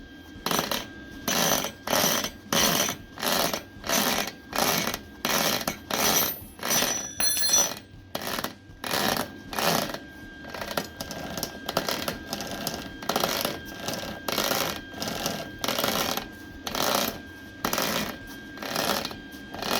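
Mini bike roller chain running over a nylon tensioner roller, clattering in an even rhythm of about three pulses every two seconds. The noise is the chain hitting a small lip or step in the slightly misaligned plastic roller, which the builder expects to wear in.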